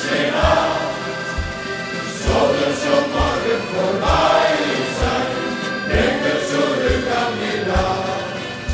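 Music: a shanty choir singing with accordion accompaniment over a steady low bass beat about once a second.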